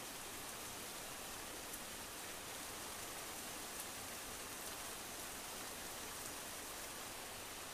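A steady, faint, even hiss with no other sound, broken only by a few soft ticks.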